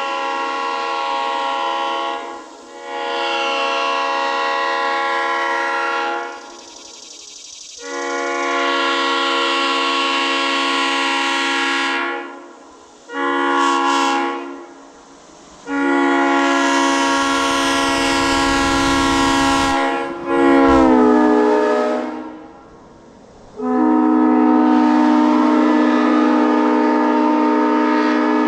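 1960 Leslie SU3L Supertyfon three-chime air train horn blown in a series of loud blasts of a few seconds each, one of them short, sounding a steady chord. About 21 seconds in, the chord sags in pitch briefly before it cuts off.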